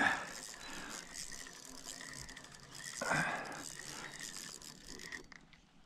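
Fishing reel being cranked with a fast run of fine ratcheting clicks while a hooked bass is reeled in, with a brief louder rush about three seconds in.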